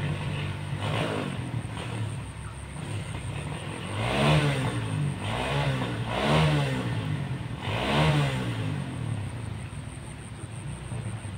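A motorbike engine revving up and down several times, its pitch rising and falling in arches of about a second each, loudest about halfway through.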